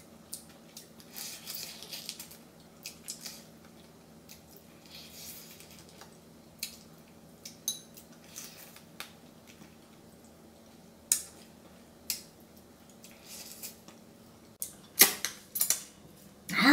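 Someone eating spicy seasoned raw crab by hand: scattered crunches and clicks of crab shell being bitten and chewed, with now and then a clink of a spoon against a bowl.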